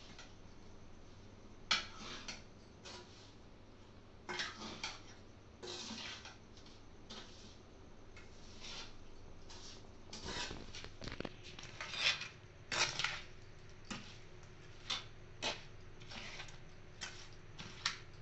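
Steel spoon clinking and scraping against an aluminium kadai as fried chicken pieces are stirred through a thick chili-spice masala, in irregular strokes with a few louder knocks past the middle.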